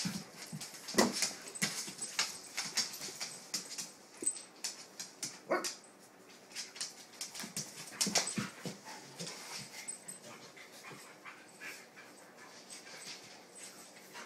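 Two dogs play-wrestling on a hardwood floor: continual scuffling and claw clicks, with short dog vocalisations a few times.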